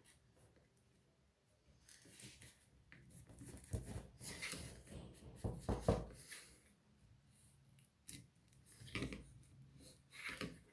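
Irregular scraping and small clicks of a pry tool working against a phone's battery and frame while levering out the glued-in battery. The adhesive is not yet soft enough to release. The sounds start about two seconds in and come in two busier stretches, one in the middle and one near the end.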